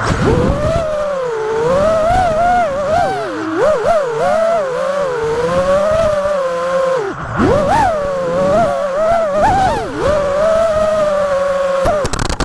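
FPV quadcopter's brushless motors whining, the pitch rising and falling constantly with the throttle, with a brief drop and a sharp climb about seven seconds in.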